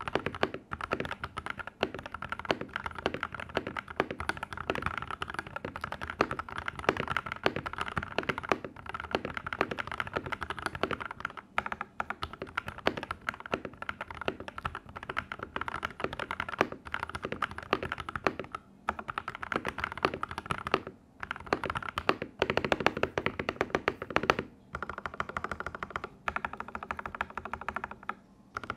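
Fast, steady typing on a Rexus DAXA M84 mechanical keyboard with lubed, filmed Gateron Yellow linear switches and Cherry-profile keycaps. The typing pauses briefly a few times.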